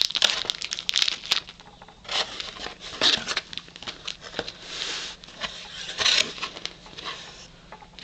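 A cardboard mailer box being opened by hand, with its flaps and a paper insert rustling and scraping. The crinkling comes in irregular bursts, busiest in the first second and a half, with a few more around the middle, and dies down near the end.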